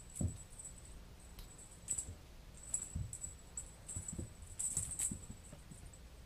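Bengal kitten pouncing at a dragonfly wand toy on carpet: several soft thumps of paws landing, with a high, crackly rustling from the toy as it is batted and jerked on its string, busiest about five seconds in.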